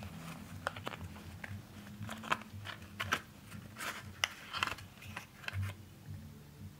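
Small sharp clicks, scratches and rustles of a clear plastic model-train case and its foam insert being handled as a small plastic N scale locomotive is pulled out, over a faint steady low hum. The handling noises cluster through the middle and stop about a second before the end.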